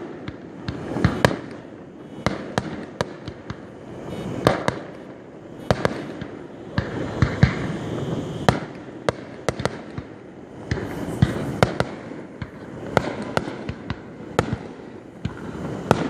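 Aerial fireworks shells bursting one after another: many sharp bangs, often several a second, over a continuous low rumble of further explosions.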